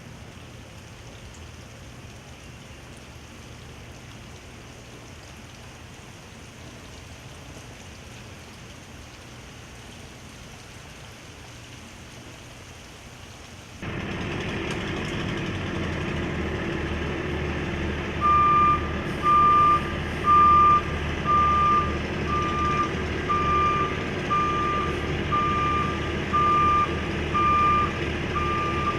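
A truck's reversing alarm beeping about once a second over its running engine. The engine noise starts abruptly about halfway through, and the beeping begins a few seconds later. Before that there is only a steady low background hiss.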